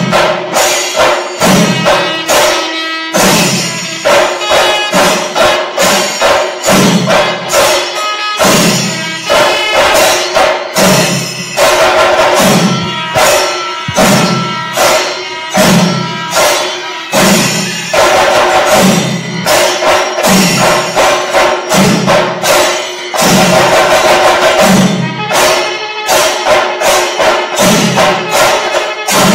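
A Panchari melam ensemble of many chenda drums played together with ilathalam cymbals clashing. The rhythm is dense and loud, with a deep beat about once a second.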